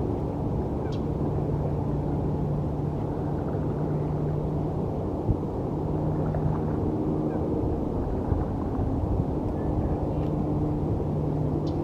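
Steady low rumble of distant city traffic with a constant humming drone, and a couple of faint, brief high chips over it.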